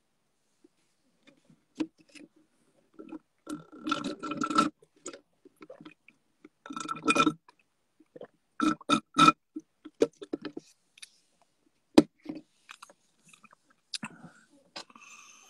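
Coffee being drunk close to the phone's microphone: three short bursts of sipping and swallowing with cup noise in the first half, then scattered sharp clicks.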